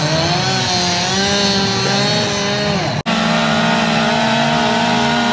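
Gas chainsaws running as carvers cut into wood, more than one saw at once, their engine pitch rising and falling under load. The sound cuts out for an instant about three seconds in.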